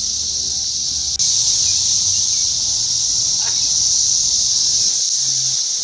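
Loud chorus of Brood X periodical cicadas: a steady, high-pitched droning buzz that gets a little louder about a second in.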